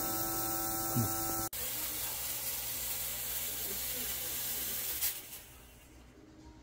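A steady hum cuts off about a second and a half in, then a small electric fogger sprays phytoncide disinfectant mist with a steady hiss. The hiss stops with a click about five seconds in.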